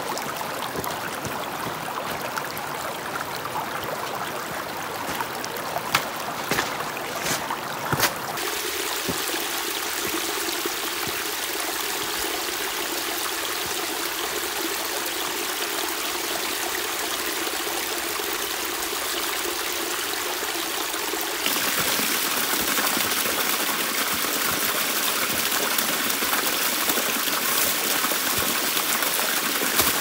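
Small mountain stream running and trickling over rocks, a steady rush of water that steps up louder about two-thirds of the way through. In the first several seconds a few sharp knocks sound over it, stones clattering underfoot on a rocky slope.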